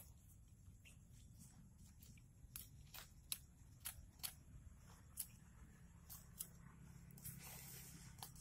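Faint, scattered sharp clicks and small snaps, about a dozen, with a brief rustle near the end: dry lantana stems and twigs being handled around a dug-out stump.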